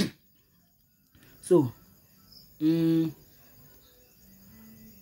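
A man's wordless vocal sounds: a short sound falling in pitch about one and a half seconds in, then a held, steady-pitched hum about a second later. Faint crickets chirp steadily underneath.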